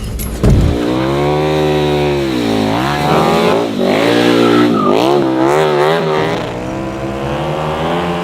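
KTM 1290 Super Duke R Evo's V-twin engine revving up and dropping back several times in quick succession, with a loud thump about half a second in.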